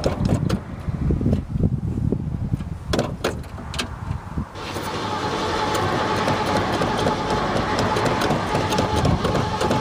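A 1970s Ford pickup's engine being cranked by the starter while flooded. It turns over unevenly and quietly at first, then from about four and a half seconds in it goes louder and steady with a fast, even pulse and a constant whine.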